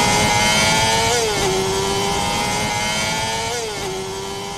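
High-revving engine sound effect at a steady high pitch. The pitch briefly rises and drops back twice, like quick gear changes, while the sound slowly fades.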